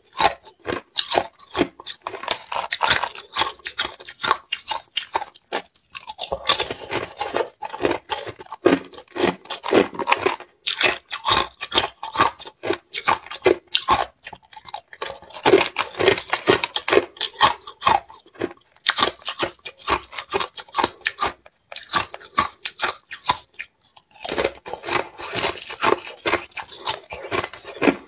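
Thin sheets of frozen matcha ice being bitten and chewed, a dense run of sharp, crackling crunches that comes in spells of a few seconds with short breaks between.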